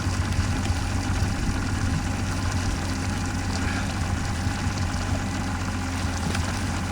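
Fishing boat's engine idling with a steady, low, even hum.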